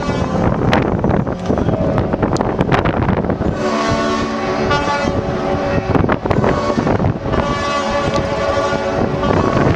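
Many yacht horns sounding at once in the traditional horn salute that closes the boat show. Their steady pitches pile into a dense, overlapping chord, which comes through clearest from about three and a half seconds in.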